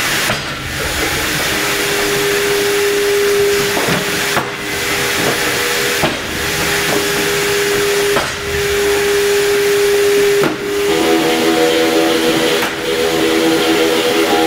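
A loud, steady hiss with a steady hum tone running through much of it, dipping briefly every two seconds or so. Near the end several steady tones join in.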